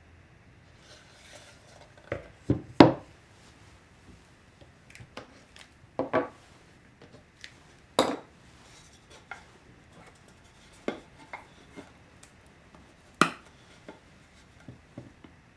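Scattered sharp wooden knocks and clacks as spring clamps are taken off a plywood corner jig and the plywood panels are lifted and set down on a wooden workbench. There are about a dozen separate hits, the loudest a quick cluster a few seconds in.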